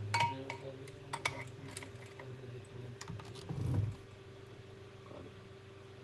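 Light clicks and taps of small hard objects being handled on a repair bench, bunched in the first couple of seconds, with a duller low knock a little after the middle, over a steady faint hum.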